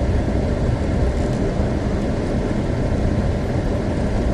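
Steady low rumble heard inside a Pontiac Grand Prix driving slowly through deep, slushy snow: tyres pushing through the snow and snow packing into the wheels and wheel wells.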